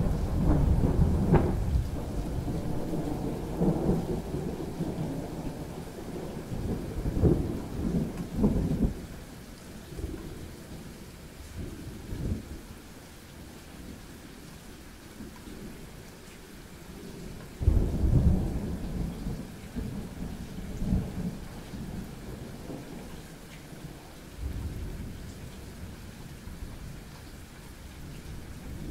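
Thunder rolling over steady rain. A loud clap just as it begins rolls on for several seconds and dies away by about ten seconds in. A second sharp clap past the middle rumbles for a few seconds, and a softer rumble follows near the end.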